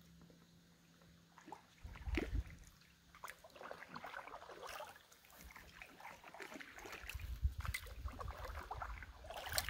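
Paddle strokes from an inflatable kayak: the double-bladed paddle dipping into calm lake water with irregular splashes and trickling drips off the blades. Low rumbles come in about two seconds in and again near the end.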